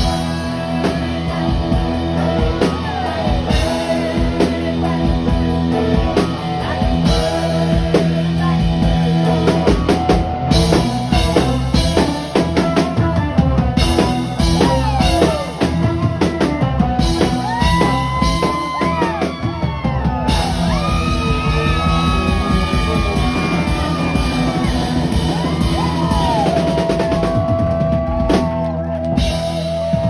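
Live rock band with a drum kit playing loud and steady while an amplified violin solos over it, its notes sliding up and down in pitch. Near the end the violin holds one long note.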